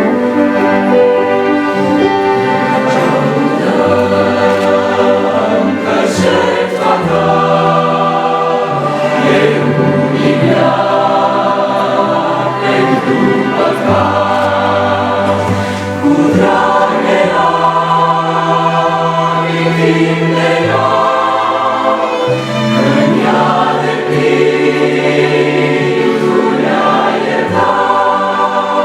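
Choir singing a worship song with instrumental accompaniment, sustained chords changing every second or two.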